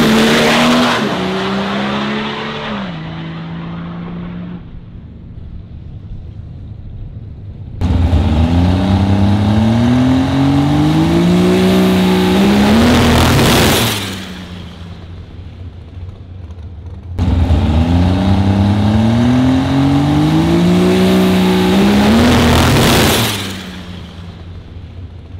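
A dragster at full throttle down a drag strip, twice. Each run starts abruptly; the engine pitch climbs, drops and climbs again through the gear changes, then a brief rush as the car goes by before the sound falls away. Early on, an earlier run fades out.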